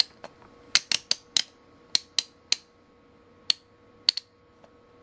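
Rotary function switch of a UNI-T UT-90A digital multimeter turned by hand through its detent positions: about a dozen sharp clicks, unevenly spaced and bunched in the first three seconds, with a few more after a pause.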